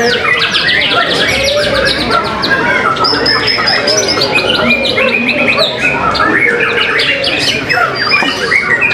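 Several caged white-rumped shamas singing at once in a dense, unbroken tangle of song: fast rolls of repeated sweeping notes, clear whistles and harsh notes overlapping one another.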